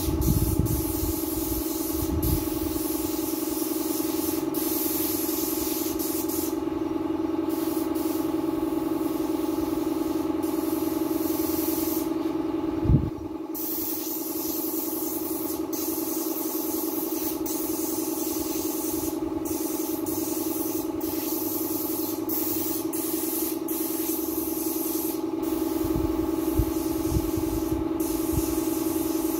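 Hose-fed paint spray gun hissing on and off as paint is sprayed onto a wall, over a steady hum. A single thump about 13 seconds in.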